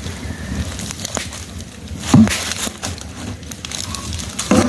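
Irregular snapping and crackling, like dry wood or brush being broken or handled, with a short low call about two seconds in.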